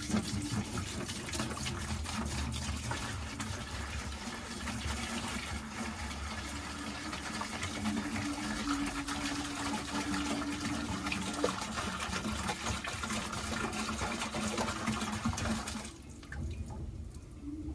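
Pink RV/marine antifreeze pouring from a gallon jug into a 5-gallon bucket, a steady rush of liquid that stops near the end.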